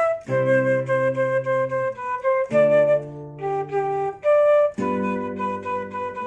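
Background music: a light melody of short notes over held chords.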